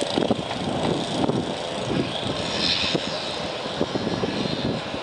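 Outdoor fishing-harbour ambience: a steady wash of noise with many short, scattered sounds over it.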